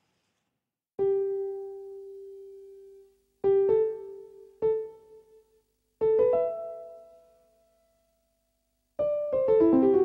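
Solo piano music: sparse single notes that ring out and slowly fade, starting about a second in, then a quick run of several falling notes near the end.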